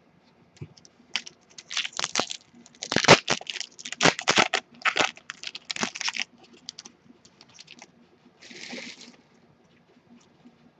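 Foil wrapper of a Topps Strata trading-card pack being torn open and crinkled by hand, in a quick run of loud crackling tears, followed by a short softer rustle near the end.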